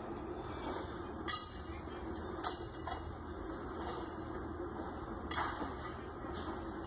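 Steady factory machinery drone with a low hum, broken by a few short clinks and clatters of items being handled at a workbench.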